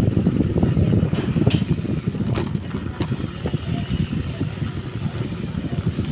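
BMX bike rolling fast over a concrete street: a steady rumble of tyres and wind buffeting the microphone, with a few sharp clicks between about one and a half and three seconds in.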